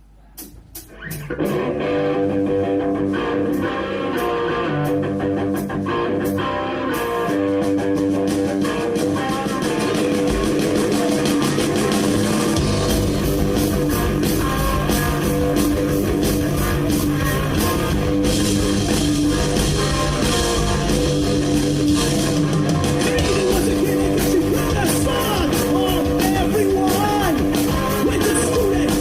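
Rock band playing live: guitars and drums, starting about a second in, with the low end filling in heavily about twelve seconds in.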